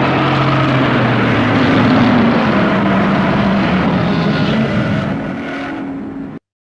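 Godzilla-style monster roar sound effect: one long, harsh, rasping roar of about seven seconds that sinks slightly in pitch, fades a little and then cuts off abruptly.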